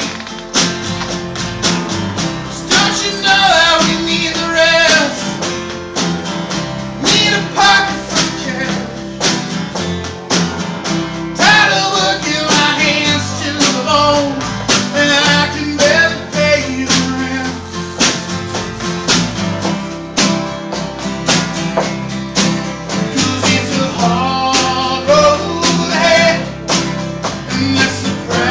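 Small live band playing a country-flavoured song: strummed acoustic guitars and a snare drum keeping a steady beat, with a man singing over them.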